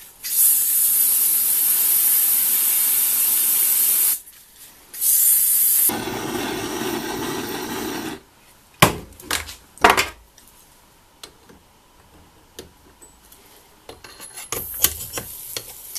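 Freeze spray hissing from an aerosol can onto the crankshaft journal in two bursts, chilling it for a shrink fit. This is followed by a gas torch flame running for about two seconds as the inner bearing race is heated. Two sharp metallic knocks come as the bearing is set onto the shaft, with light scraping near the end.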